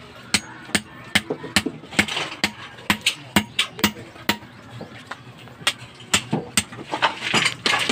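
Hand tool striking concrete and stone rubble: sharp, irregular knocks, two or three a second, with a short pause just before the middle.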